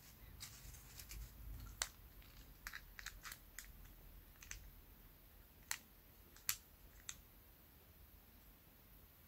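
Scattered small clicks and taps of the plastic parts of a disassembled spinning reel being handled and fitted together, with a few sharper clicks about two seconds in and twice around six to seven seconds in.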